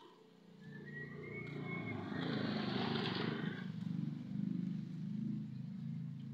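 A motor vehicle engine running with a low pulsing sound, swelling louder about two to three seconds in, then easing back.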